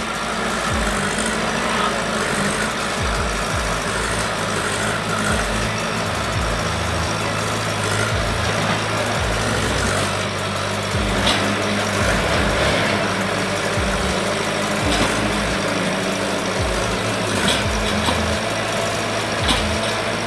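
JCB 3DX backhoe loader's diesel engine running steadily under work, with a few light knocks scattered through.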